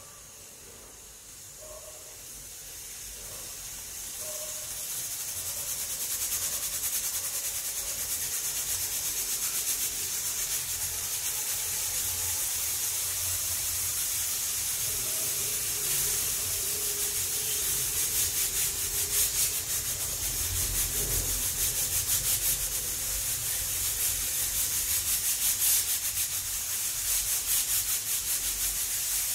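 Aluminium pressure cooker on a gas flame letting out steam past its weight valve as pressure builds. It is a hiss that rises over the first few seconds and then holds steady, with a fast flutter from about halfway through.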